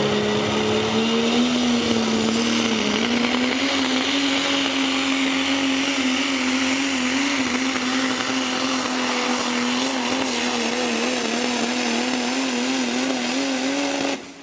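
Super stock diesel pulling truck's engine running flat out under load while dragging a pulling sled, its note held high and wavering slightly, with a high whine above it. The sound cuts off suddenly near the end.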